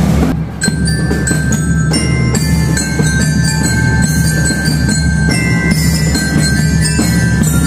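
Marching band's bell lyres (marching glockenspiels) playing a quick, bright melody of struck, ringing metal notes over a steady low bass.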